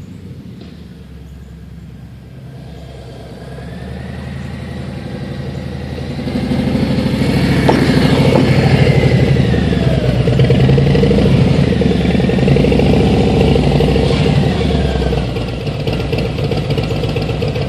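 Harley-Davidson Milwaukee-Eight V-twin of a 2017 Road King Special running through Cobra Neighbor Hater slip-on mufflers. It grows louder from a few seconds in, is at its loudest for about ten seconds with the pitch rising and falling, and eases off a little near the end.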